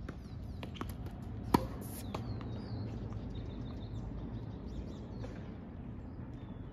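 Tennis ball hit by rackets and bouncing on a hard court: a few light pops and one sharp, loud racket hit about a second and a half in. Birds chirp in the background.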